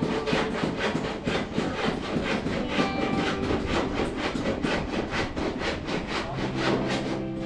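Background music with a fast steady beat and short melodic notes.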